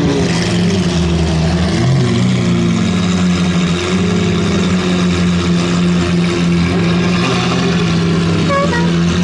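Lamborghini Aventador V12 engines running at a low, steady idle as the cars crawl past, with a small rise in revs about two seconds in. A few short musical notes come in near the end.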